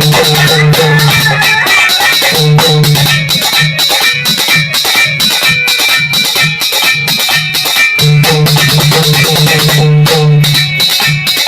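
Instrumental interlude of a Hindi devotional bhajan: plucked strings with a steady drum rhythm and sustained low bass notes, without singing.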